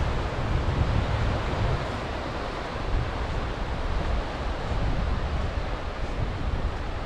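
Sea surf washing on the shore, with wind buffeting the microphone in an uneven low rumble.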